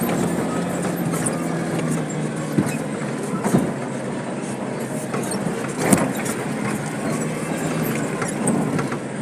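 A 4x4 vehicle driving over a rough dirt track: a steady engine hum with knocks and jolts from the bumps, the loudest about six seconds in.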